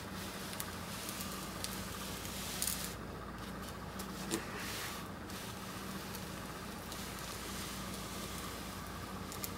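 Handling noise from an antique cast-iron hand-crank generator being shifted and turned on a cloth-covered tabletop: scattered light clicks and a couple of brief scraping rustles over a steady background hum.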